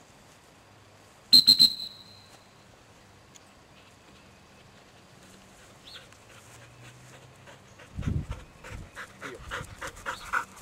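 A dog-training whistle sounds a quick trill of high peeps about a second in. Near the end comes the Boykin Spaniel's rapid breathing, quick and repeated and growing louder, as it runs back in with the bumper.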